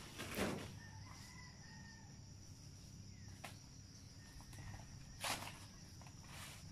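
A rooster crows faintly about a second in, over a steady high-pitched drone of insects. There are short rustling bursts near the start and near the end, from someone moving through the brush.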